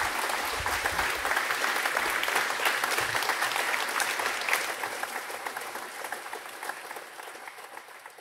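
Audience applauding, a dense patter of many hands clapping that fades away over the second half.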